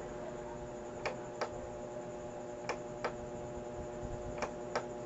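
Channel button on the front of a CRT television clicking as it is pressed and released, three presses about 1.7 seconds apart, over a faint steady hum.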